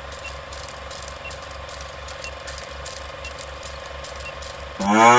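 Film-projector clatter sound effect running under a countdown leader: a steady rapid mechanical rattle with a faint tick once a second, ending about five seconds in with a loud pitched tone lasting about half a second.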